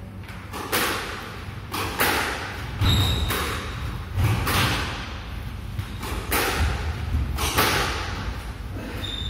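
Squash rally: the ball cracking off rackets and the walls about once a second, each hit echoing around the court. Twice a brief high shoe squeak, with footfalls thudding on the wooden floor.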